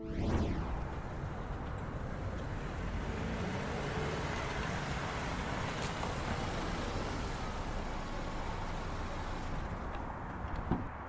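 City street traffic ambience: a steady wash of passing cars. It opens with a short whoosh, and a sharp click comes near the end.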